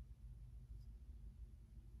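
Near silence: room tone with a steady low hum and one faint tick.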